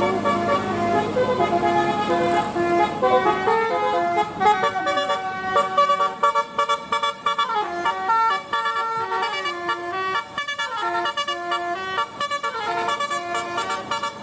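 Bus telolet horn, a multi-trumpet melody air horn, playing a quick tune of stepped notes, several tones sounding together, with short gaps between phrases. A low engine rumble underneath fades out about four seconds in.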